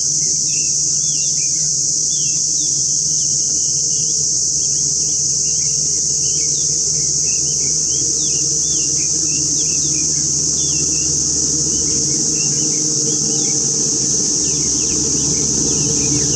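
Rufous-necked laughingthrushes calling in many short whistled notes that rise and fall, scattered through the whole stretch, over a loud, steady, high-pitched insect drone. A low steady hum runs underneath.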